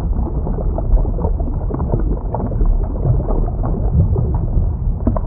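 Underwater sound effect: a steady low rumble with short bubbling pops scattered through it.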